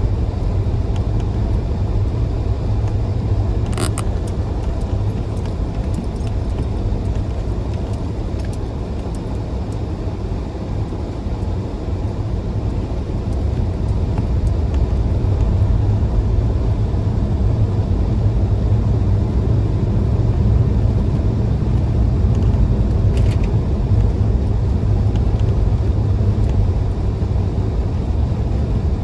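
Rear-wheel-drive car driving on snow-covered roads: a steady low rumble of engine and road noise, with two brief clicks, one near the start and one later on.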